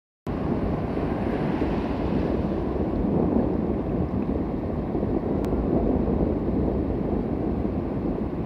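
Small surf breaking and washing up over a sandy shore, heard as a steady rushing noise, with wind rumbling on the phone's microphone.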